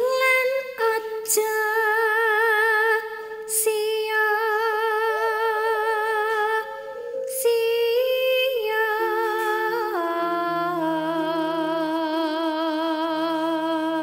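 Background music: a slow, wordless, voice-like melody of long held notes with a strong vibrato, sliding down to lower notes about ten seconds in.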